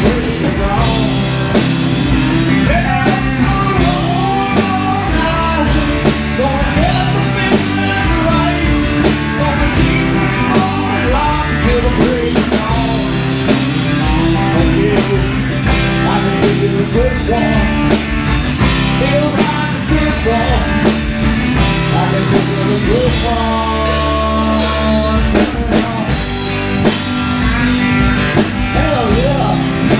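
Live country-rock band playing: electric and acoustic guitars, bass and drum kit with a steady beat, and a lead vocal in places. About 23 seconds in the band holds a long sustained chord for a few seconds, then drives on.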